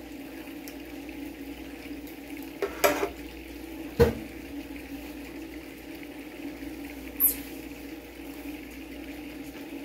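A metal ladle clinking against a metal baking pan a few times as pan juices are spooned onto a plate and the ladle is set back in the pan, over a steady low hum.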